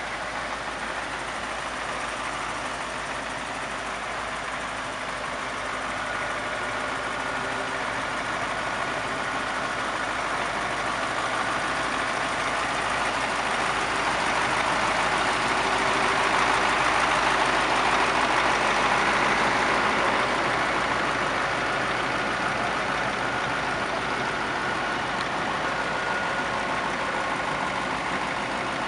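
Heavy road-works machinery running steadily with engine noise, growing louder about halfway through and easing off again toward the end.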